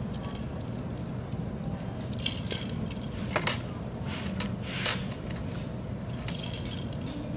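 Steady low background hum of a quiet eating place, with a few sharp clicks and clinks. The two loudest come about three and a half and five seconds in.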